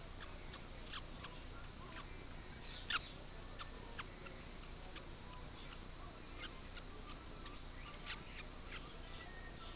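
Baby parrot chick giving short, high squeaky cheeps at irregular intervals, one louder about three seconds in, while a kitten plays with it.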